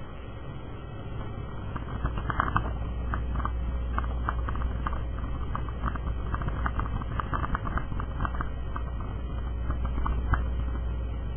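Car driving on a snow-packed road, heard from inside: a steady low rumble of engine and tyres, with a scatter of quick, irregular light ticks throughout.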